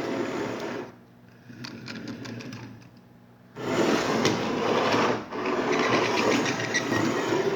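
Rapid mechanical rattling in bursts: a short loud one, a weaker stretch, then a longer loud run from about three and a half seconds in.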